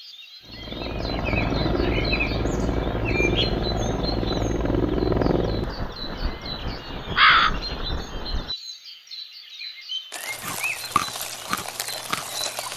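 Small birds chirping throughout, under a loud low rushing noise for most of the first eight seconds. About seven seconds in, a large black bird gives one loud, harsh caw.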